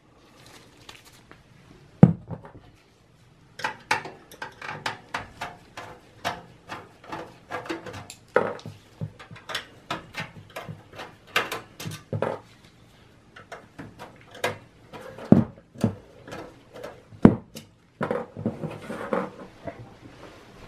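Irregular clicks, taps and knocks from handling screws, a screwdriver and a steel computer case, with a sharp knock about two seconds in and two louder knocks near the end.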